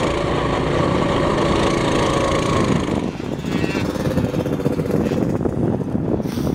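A Coleman CT200U-EX pit bike's small 196cc single-cylinder four-stroke engine running steadily under load. About three seconds in the sound changes abruptly to wind noise with a fainter engine.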